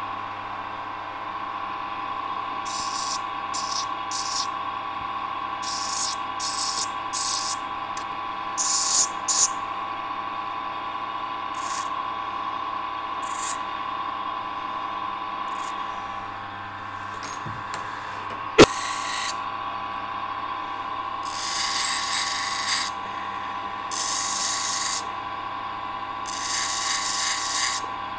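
Workshop tool sounds: short, irregular bursts of hissing or scraping over a steady high hum, with one sharp click about two-thirds of the way through and longer bursts near the end.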